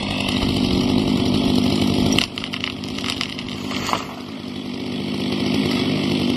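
Two-stroke chainsaw running at a steady low speed. About two seconds in, the level drops suddenly, then the same steady running slowly grows louder again.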